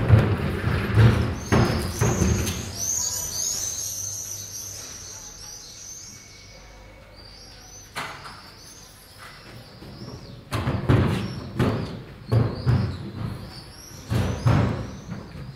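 Neighbourhood street sounds: a few loud knocks and bangs, then small birds chirping for a couple of seconds. After a quieter stretch with a single click, another run of knocks comes near the end.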